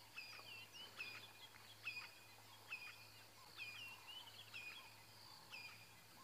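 A bird calling over and over, faint: short high calls, each a quick downward flick that settles into a level note, about once a second.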